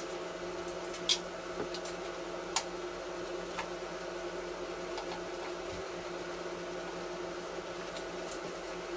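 Steady mechanical hum with several fixed tones, broken by a few scattered sharp clicks.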